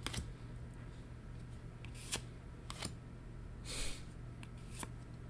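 Trading cards being slid and flicked through by hand: a few sharp card snaps and a short rustle just before four seconds in.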